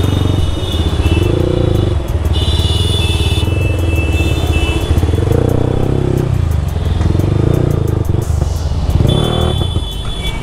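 Yamaha R15M's single-cylinder engine and exhaust running at low speed, rising and easing off a little as the bike filters through slow traffic.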